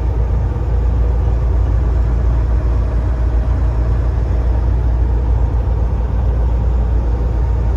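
Steady engine drone and road rumble inside the cab of a Volvo semi truck driving along the highway.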